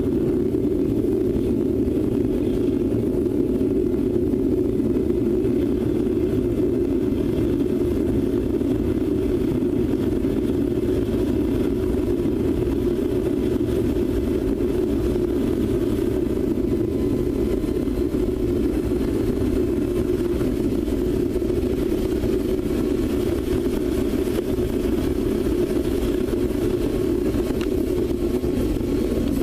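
Home-made forced-air multi-fuel foundry burner running on propane, a steady, even rush of flame and blower air with no change in pitch or level.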